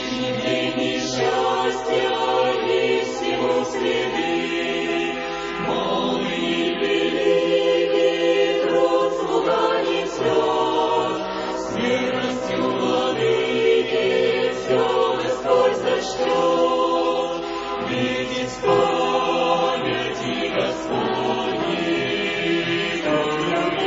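Background choral music: a choir singing slowly in sustained, held chords that change every couple of seconds.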